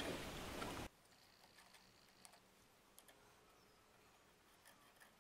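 Near silence with a few faint small clicks of a hand tool working the screws of a brake master cylinder reservoir cover. Light room noise for about the first second, then the background drops away suddenly.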